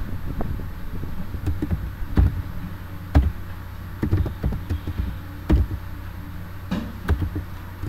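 Computer keyboard being typed on: irregular clicks and taps of keystrokes, with a few heavier key thumps, over a steady low hum.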